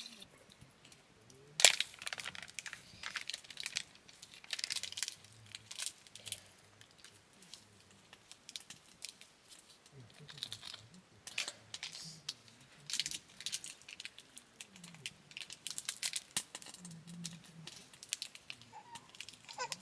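Small plastic seasoning sachets crinkling and being torn open, with scattered sharp crackles and one loud crack about one and a half seconds in.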